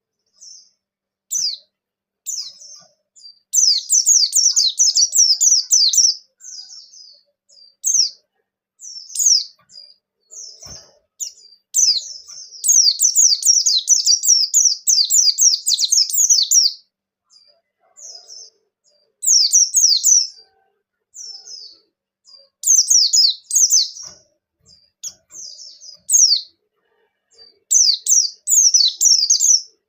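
Pleci bustomi (a white-eye) singing in bursts of rapid, high, quickly falling chirps, some phrases short and several running on as long fast strings of notes.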